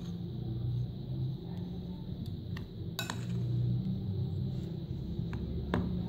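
A metal spoon stirring dry gram flour in a glass bowl, with scattered light clinks as it knocks against the glass, over a low steady hum.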